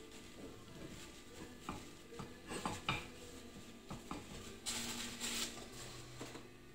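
Faint clinks and light knocks of a ceramic plate and utensils being handled on a gas stovetop, a handful of separate taps scattered through the middle, with soft rustling between them.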